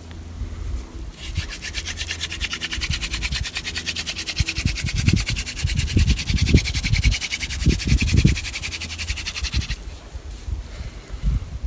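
Mullein hand-drill spindle grinding in the notch of a white pine hearth board, a rapid rhythmic dry scratching as it is spun back and forth between the palms to build up hot dust for an ember. It starts about a second in and stops shortly before the end, with dull low thumps underneath.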